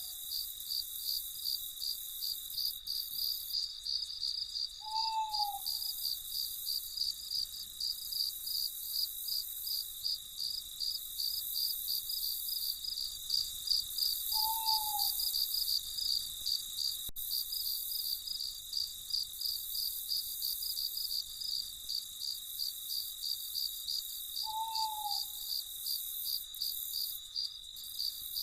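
Crickets chirping in a steady, even pulse. Three times, about ten seconds apart, a night bird gives a single short hoot.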